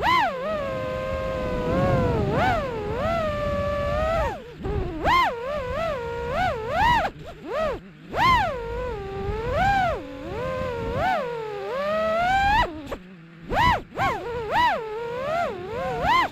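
Dirt bike revving up and down over and over, a high whine that rises and falls in pitch about once a second, with a low rumble of wind and tyres beneath. It drops off briefly twice, about four seconds in and near the end.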